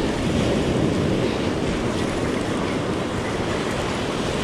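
Spinning reel cranked steadily under load, reeling in a hooked bluefish, with surf washing behind it.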